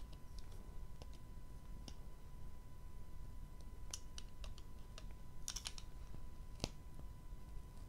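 Scattered light clicks and taps of a red craft knife worked against a diamond painting canvas and its plastic film. There is a quick run of clicks about five and a half seconds in and a sharper click near seven seconds.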